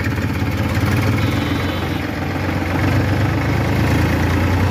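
Tractor's diesel engine running steadily as the tractor drives along the road, heard from the driver's seat.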